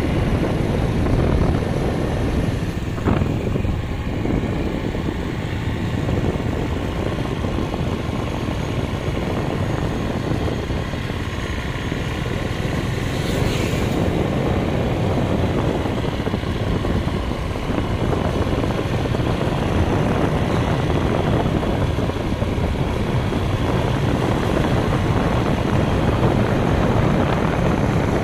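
Motor scooter riding noise: small engines running steadily along with wind and road noise.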